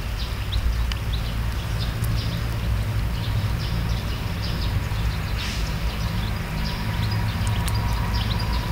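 A steady low rumble of outdoor background noise, with many small birds chirping in quick short calls over it.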